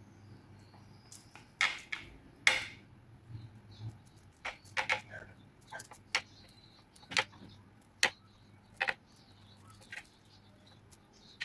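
A butter knife cutting and scoring a soft chicken and potato mixture on a parchment-lined metal tray, giving about a dozen sharp, irregular clicks and taps as the blade meets the tray. A faint steady low hum runs underneath.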